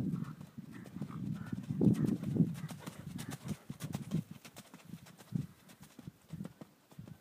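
Hoofbeats of a ridden Thoroughbred horse on dirt arena footing: a run of low, dull thuds, loudest as the horse passes close and growing fainter as it moves away.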